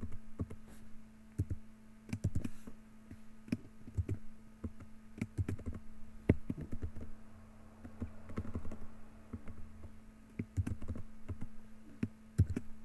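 Computer keyboard keys pressed in short irregular runs of clicks, with a faint steady hum underneath.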